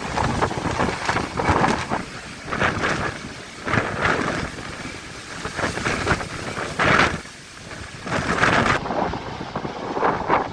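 Strong gusting wind buffeting the microphone in repeated surges, with rough sea and waves behind it.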